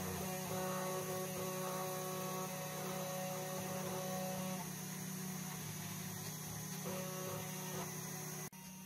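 Comgrow Robo CNC router engraving aluminium plate: the spindle motor hums steadily as the engraving bit cuts, while a higher whine comes and goes as the axes move the bit between strokes. The sound changes abruptly near the end.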